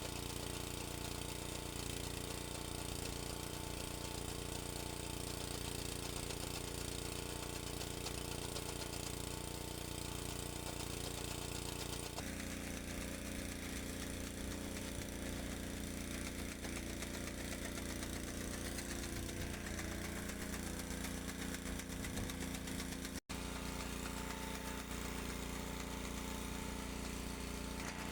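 An engine running steadily at a constant speed. Its note changes abruptly about twelve seconds in, and the sound cuts out for an instant a little over twenty seconds in.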